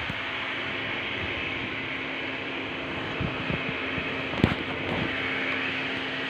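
Steady fan-like background noise with a low hum, broken by a few light knocks, the sharpest about four and a half seconds in.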